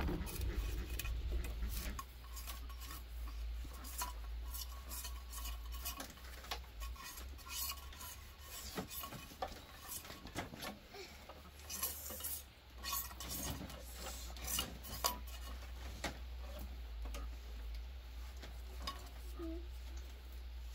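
A hooked machete blade scraping and shaving a thin bamboo strip in repeated, irregular strokes with light clicks, over a low steady rumble.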